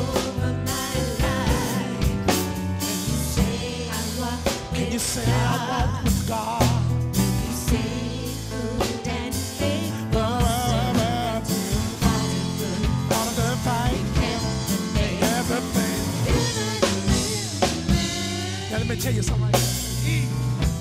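Gospel vocal group singing together with vibrato over a live band, with a drum kit keeping a steady beat of regular strikes.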